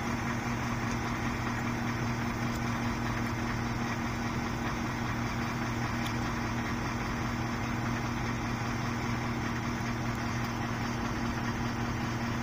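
Vehicle engine idling with a steady low hum that does not change.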